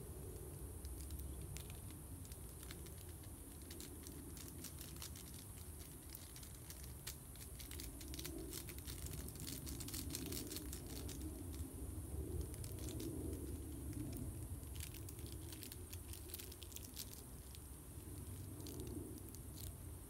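Irregular light crackling and snapping of dry twigs at a small wood-burning camp stove, thickest around the middle.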